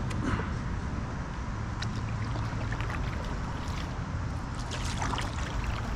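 Kayak paddle dipping into pond water, with short splashes and drips at a few strokes, over a steady low rumble.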